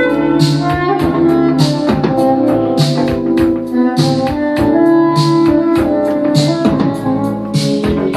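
Vinyl record playing on a Pioneer PL-630 quartz turntable: instrumental music with held notes over a steady beat.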